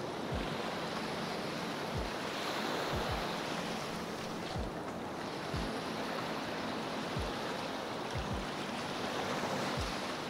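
Small waves washing onto a sandy beach, a steady hiss of surf, with short low thumps on the microphone about once a second.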